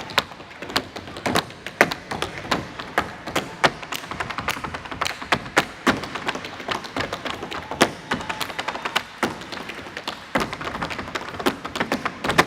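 Rapid, irregular percussive taps and thumps, several a second, in a fast driving rhythm that stops abruptly.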